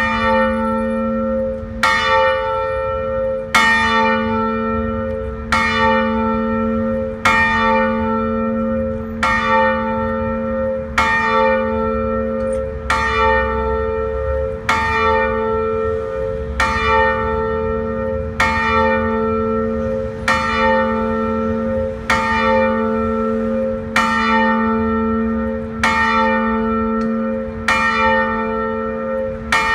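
A single church bell tolling steadily, struck about every two seconds on the same note, each stroke ringing on until the next.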